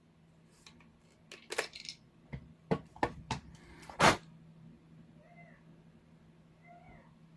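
Irregular clicks and knocks, the loudest about four seconds in, as parts of the Makita ML807 lantern work light are handled. Then two faint short meows from a cat.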